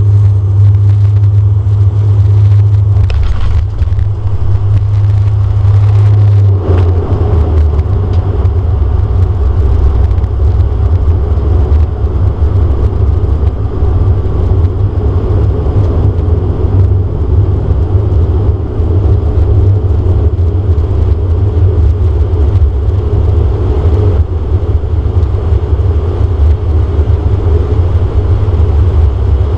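Turboprop engine and propeller of a DHC-8 Q400 heard from inside the cabin, running at low power as the aircraft rolls on the ground: a loud, steady low drone. Its pitch shifts about three seconds in and again a little after six seconds.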